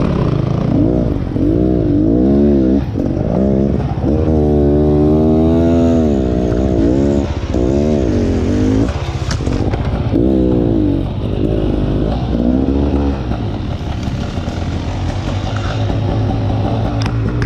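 Dirt bike engine on a trail ride, its pitch rising and falling again and again as the throttle is opened and rolled off, then settling to a steadier, lower note near the end. There are a couple of brief sharp clicks.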